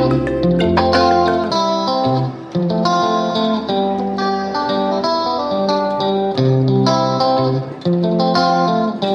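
Background music: plucked guitar playing a melody.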